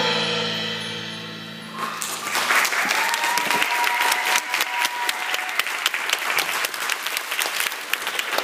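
The last held chord of a song fades away, then an audience starts clapping about two seconds in and keeps up steady applause.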